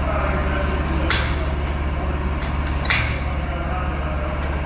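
Vehicle engine idling with a steady low hum, broken by two sharp knocks about two seconds apart and a couple of faint clicks between them.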